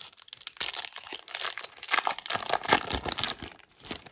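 Trading cards and thin plastic card sleeves handled close up: an irregular crinkling rustle, busiest about two to three seconds in, fading out near the end.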